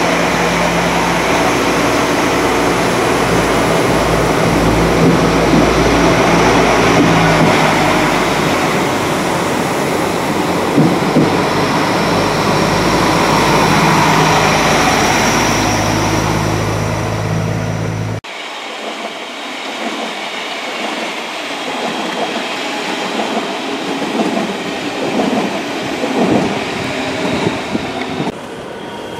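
A diesel multiple unit's engines running steadily as the train stands or moves along the platform. After an abrupt cut about 18 seconds in, a passing train's wheels clatter on the rails.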